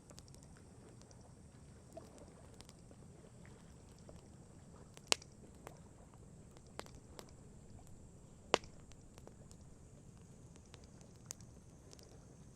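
Wood campfire crackling: scattered sharp pops, two of them much louder, about five and eight and a half seconds in, over a low steady rumble.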